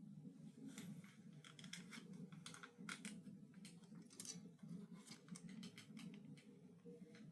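Faint, irregular clicks and smacks of someone eating, chewing and handling food, over a low steady hum.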